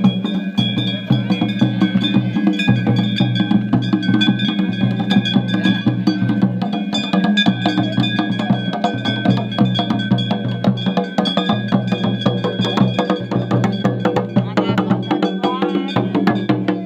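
Devotional percussion: drums beaten in a fast, steady rhythm with metal bells ringing continuously over them, as at a temple ritual.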